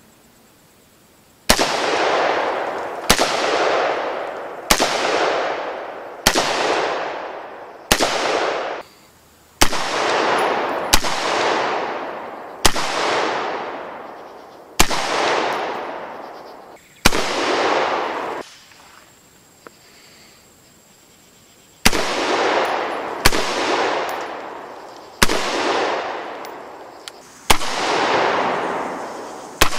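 Semi-automatic AR-15 pistol in 5.56/.223 firing single shots at a slow, steady pace, about one every one and a half to two seconds. Each shot is followed by a long echoing tail. Ten shots, a pause of about three seconds, then five more.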